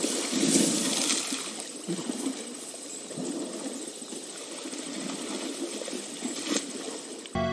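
Outdoor ambience of African elephants at a waterhole: a steady hiss with water sounds and a few soft knocks.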